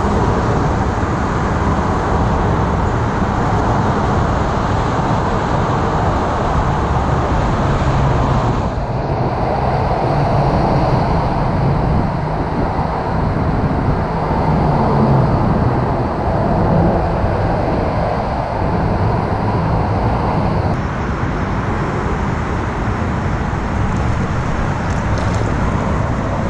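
Steady wash of road traffic noise from cars passing, a constant roar with no breaks.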